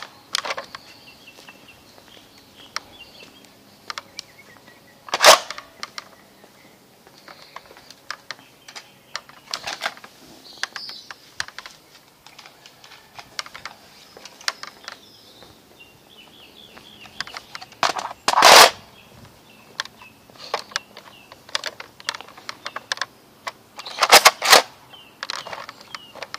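Tek Recon toy blaster firing: single sharp shots a few seconds apart, then a quick burst of three near the end, with small clicks of handling in between.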